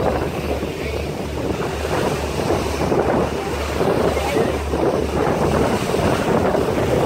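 Wind buffeting the microphone aboard a moving fishing boat, over the rush of water along the hull and a low rumble that pulses unevenly.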